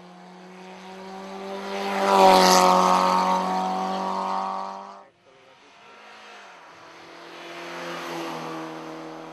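Race car engines running hard uphill as two cars pass in turn. The first swells to a loud pass about two seconds in and stops abruptly. A second then builds up and passes close near the end.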